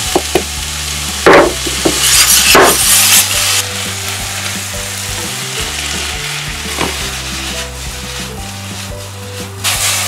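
Strips of onion, carrot and pepper sizzling in hot oil in a wok as they are stirred with a spatula, with a few short knocks and scrapes of the spatula against the pan. The sizzle swells loudest about two to three seconds in and again near the end.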